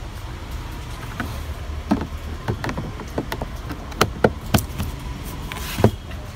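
Hands handling plastic car boot trim panels: about ten sharp clicks and taps, the loudest near the end, over a steady low hum.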